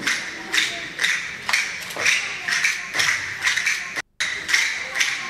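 Steady rhythmic hand clapping, about two claps a second, with a brief dropout about four seconds in.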